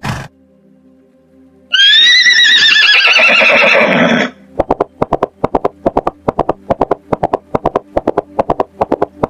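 A horse neighing: one loud whinny lasting about two and a half seconds, wavering and falling in pitch. A fast, even run of short knocks follows, about five a second, over soft background music.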